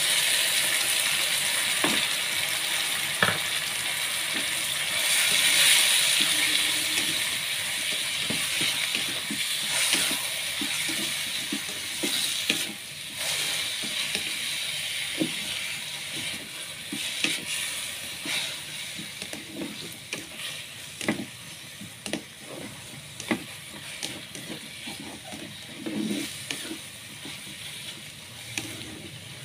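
Sliced bitter melon stir-frying in hot oil in a pan: a steady sizzle, loudest in the first few seconds and slowly dying down, with a spatula clicking and scraping against the pan, more often in the second half.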